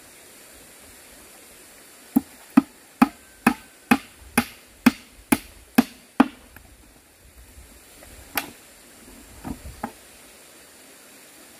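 A run of about ten sharp, evenly paced strikes, a little over two a second, stopping after about four seconds; a single strike and a few lighter knocks follow later.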